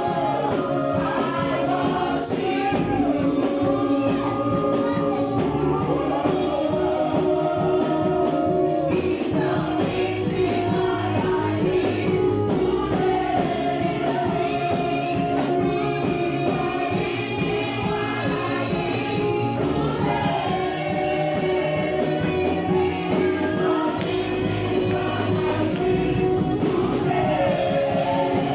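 Gospel music: voices singing held, gliding melody lines over band accompaniment with a steady beat.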